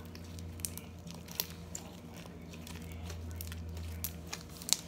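Hands kneading and squeezing slime mixed with cut-up straw pieces and beads, giving scattered small crackles and clicks, the sharpest near the end, over a steady low background hum.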